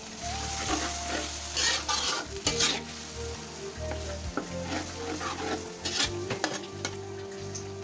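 A metal spatula stirring and scraping chicken pieces in a large aluminium wok, in a sizzling sauce of chilli powder and water. The louder scrapes come at about two seconds in and again near six.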